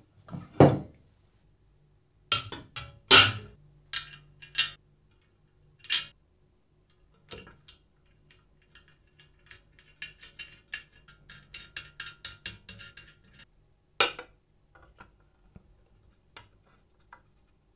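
Small metal parts being handled while fitting a painted metal footboard, screws and nuts onto a scooter frame: several sharp knocks and clinks, the two loudest in the first few seconds, then a quick run of small metallic ticks and clinks from about ten to thirteen seconds in.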